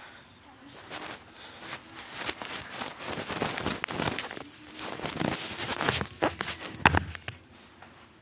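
Rustling and scraping handling noise with scattered clicks and knocks, as hands move the phone and rubber toy snakes about on carpet. A sharp knock comes about seven seconds in, where the rustling stops.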